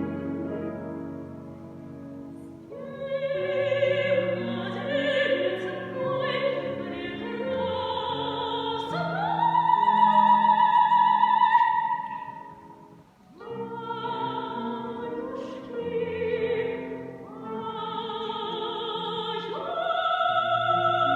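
Female soloist singing in a classical, operatic style over accompaniment. About nine seconds in, her voice glides up to a long high note held with vibrato.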